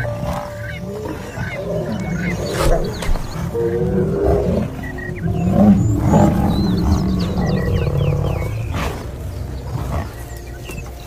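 Lions growling while they attack a Cape buffalo, mixed with the buffalo's bawling calls.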